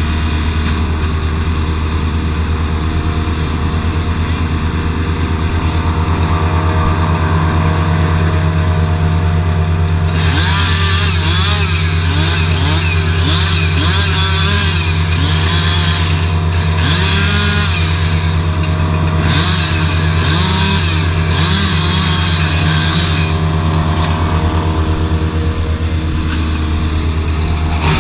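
Heavy engine running steadily at constant speed. From about ten seconds in, a harsher, higher-pitched noise joins it.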